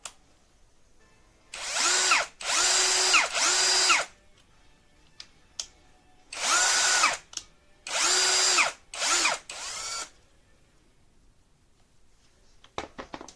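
AKZWOXRO 21V cordless drill driver's motor run in about seven short trigger bursts, each whine rising as it spins up and falling as it winds down, the last two brief. A few sharp clicks near the end.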